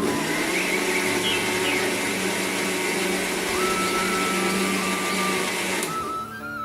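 A small electric mixer grinder running steadily with a motor hum, starting abruptly and cutting off about six seconds in, most likely grinding the ingredients for the pani.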